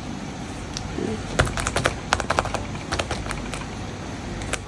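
Light clicking taps in quick short runs as a blush applicator is dabbed onto a paper doll's cheeks.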